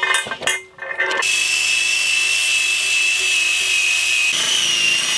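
Electric drill spinning an abrasive disc against the bare iron of a cast iron griddle, sanding down its textured surface. It starts about a second in as a steady high whine over a grinding hiss, and the whine shifts and wavers slightly near the end.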